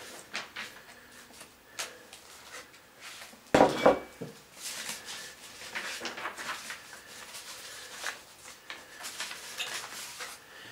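Handling noise: scattered rustling and small clicks of objects being moved about, with one louder knock about three and a half seconds in.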